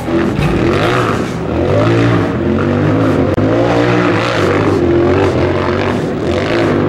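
Off-road rock buggy's engine revving hard under load as it climbs a steep rocky hill, its pitch rising and falling over and over as the throttle is worked.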